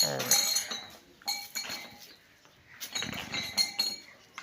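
Metal bells on livestock jingling and clinking in several short bursts, with a brief low falling call at the very start.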